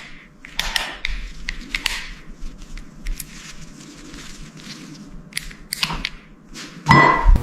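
Hand-work sounds on parts and tools: a scattered series of short clicks and knocks with light scraping between them, and one louder rasping burst near the end.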